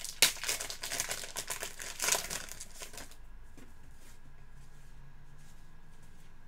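Trading cards and their packaging being handled: crinkling and rustling for about three seconds, then it stops, leaving only a faint low hum.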